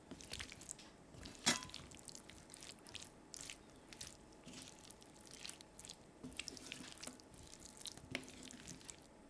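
Metal utensil stirring a vegetable and chicken stir-fry in a stainless steel frying pan: irregular scrapes, taps and soft squishes of food, with one sharp ringing clink of metal on the pan about a second and a half in.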